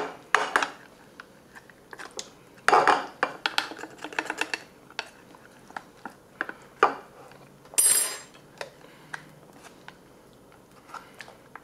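Metal spoon scraping and clinking against an opened tin can and a plastic bowl as tuna salad is scooped out: irregular clinks, with a couple of louder scrapes about three and eight seconds in.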